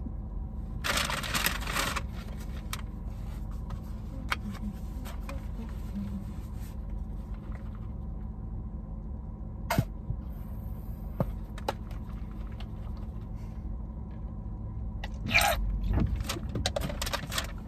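Paper food packaging rustling and a plastic squeeze sauce bottle being handled, with a few sharp clicks, over a steady low rumble inside a car.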